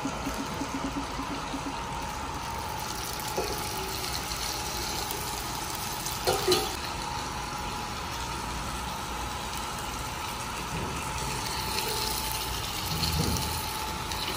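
Steady sizzling hiss from food cooking in the table's hot pot and on its grill plate. Metal serving tongs click against plates, once about three seconds in and more loudly about six seconds in.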